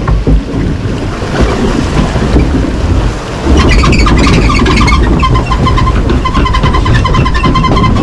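Rumbling, rushing noise from a log flume boat ride. About three and a half seconds in, loud music with a pulsing beat starts and carries on.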